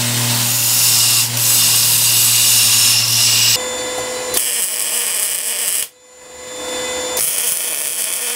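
A belt grinder running with a steel piece held against the belt: a steady motor hum under the hiss of grinding, cutting off abruptly about three and a half seconds in. Then an electric arc welder hissing and crackling as a steel plate is welded, in two stretches with a short break about six seconds in.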